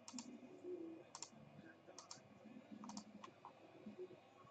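Faint computer mouse clicks, mostly paired press-and-release clicks, about once a second.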